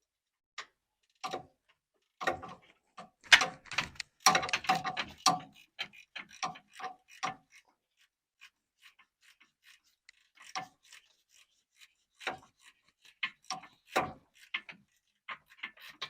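Hand socket ratchet clicking in short runs as the starter mounting bolts are worked loose, with a few metallic knocks. The clicking stops for a couple of seconds midway, then resumes as scattered single clicks.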